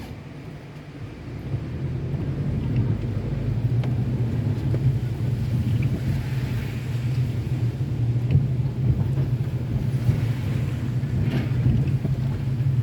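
Car driving on rain-wet streets: a steady low rumble of engine and tyre noise that builds over the first two seconds, then holds.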